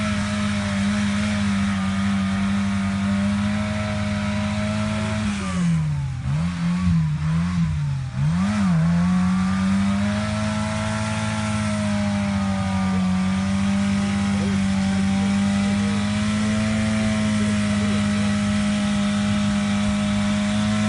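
Suzuki Samurai's 1.6 L G16A four-cylinder engine, with a Tri-Y header and Magnaflow muffler, running under load as the 4x4 pushes through deep mud. The note holds a steady pitch, then dips and wavers up and down several times about six to nine seconds in, before settling back to a steady pitch.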